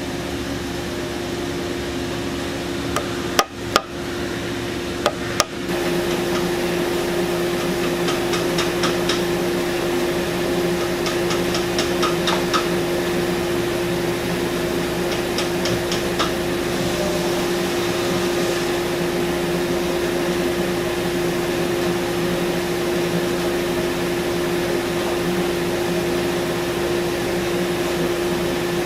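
A few sharp knocks, then an SCMI Sandya 5 wide belt sander running with a steady hum, over which come several short bursts of light ticking.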